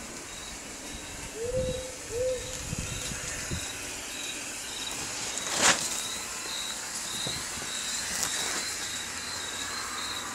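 Two short hoots of an owl early on, over a steady run of high cricket chirps, with one sharp, loud crack just past halfway.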